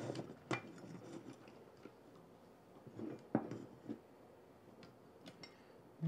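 Faint handling noise of electrical wires being twisted together in orange twist-on wire connectors inside an electrical box, with a few scattered light clicks of plastic and wire.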